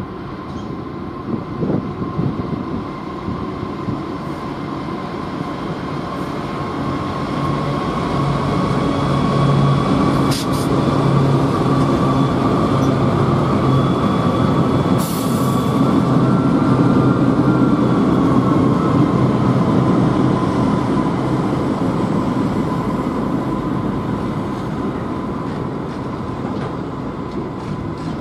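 Two NR class diesel-electric locomotives passing at close range as a slowing intermodal freight train goes by, their engine hum swelling to a peak about halfway through, then the container wagons rolling past as the sound eases. A steady high whine runs under it throughout, with one short sharp noise just past the middle.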